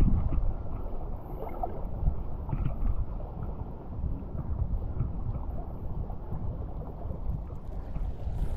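Shallow seawater sloshing and lapping close to the microphone, with a low rumble of wind on the mic.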